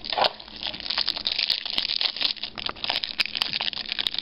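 Plastic wrapping of a trading-card pack crinkling and crackling as it is opened and handled, with many small sharp crackles.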